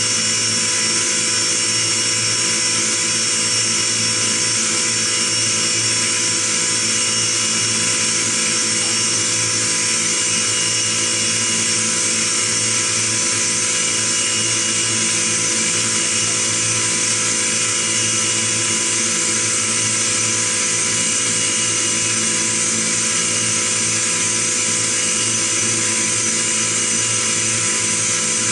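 Five-axis CNC milling machine running: a steady spindle whine with several fixed high tones over a constant mechanical hum as the end mill cuts the workpiece, unbroken throughout.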